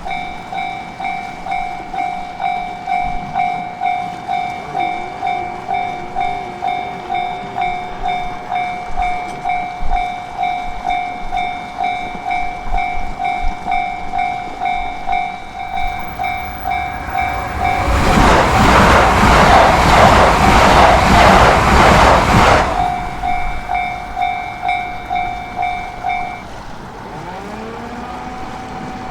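Japanese level-crossing warning bell ringing in a steady repeating electronic ding. A train passes over the crossing from about 17 to 23 seconds in, its wheels clattering over the rail joints. The bell cuts off a few seconds after the train has gone.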